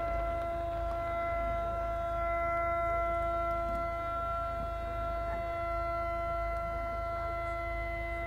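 A steady, unwavering held tone with overtones, over a low rumble.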